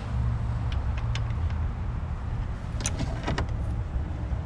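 A few sharp metallic clicks and clinks from tools and engine parts being handled, with a quick cluster of clicks about three seconds in, over a steady low hum.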